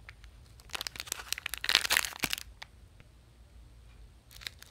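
Snack-bar wrapper being torn open and crinkled by hand. A stretch of crackling runs from about one second to two and a half seconds in, then it goes quiet, then there is more crinkling near the end.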